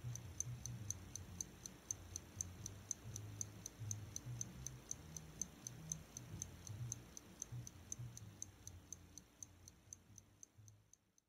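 Clock ticking fast and evenly, about four ticks a second, over an uneven low hum, fading out near the end.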